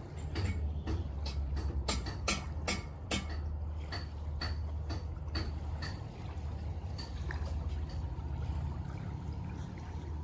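A regular series of sharp knocks, about two to three a second, loudest in the first few seconds and fading out after about seven seconds, over a steady low rumble of wind on the microphone.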